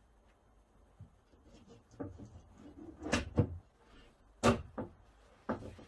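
Wooden knocks and bumps as the panels of a furniture-board overhead cabinet carcass are handled and fitted. There are several separate knocks, the loudest about three and four and a half seconds in.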